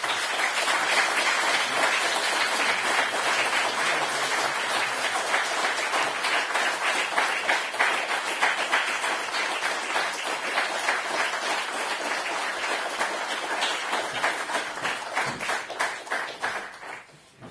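Audience applauding: many hands clapping together in a dense, steady patter that dies away near the end.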